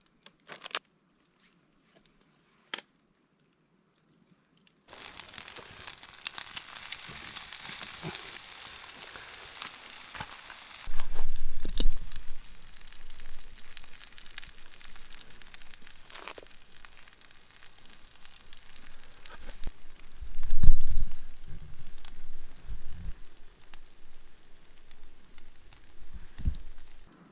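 Chicken and cheese sizzling as they fry over a campfire. The sizzle starts about five seconds in and is strongest for the next few seconds, with a few dull low thumps around the middle, the loudest just past two-thirds of the way through.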